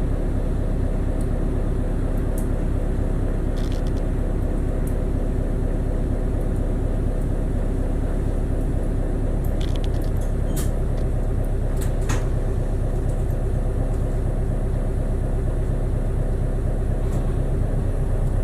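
City bus engine running, heard from inside the passenger cabin as a steady low rumble, with a few light clicks and rattles around two-thirds of the way through.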